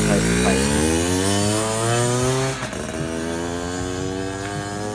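Yamaha Chappy 50cc two-stroke moped engine revving through a Thai concept exhaust pipe. The revs climb for about two and a half seconds, drop back with the sound getting quieter, climb again more slowly, and fall off near the end.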